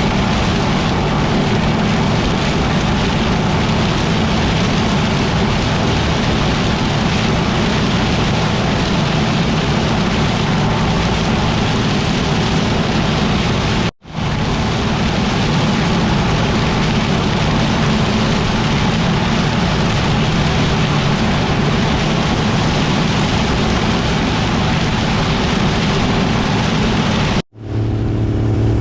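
Combine harvester running steadily while harvesting corn: a loud, even din with an engine hum under it. It cuts out abruptly twice, and near the end a steadier engine hum with clear tones takes over.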